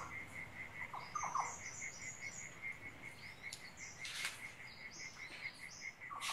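Field-recorded forest ambience: a cricket chirping steadily at about five pulses a second, with birds calling over it in runs of short high chirps and a few lower notes. A short hiss comes about four seconds in.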